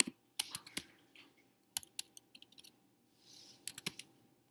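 Typing on a computer keyboard: several short bursts of keystrokes.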